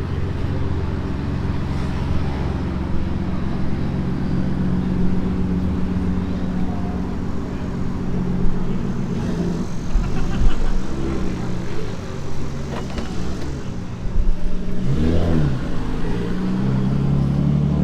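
A car engine running steadily, with a few short rises and falls in engine pitch in the second half, as from light revs or a car moving off.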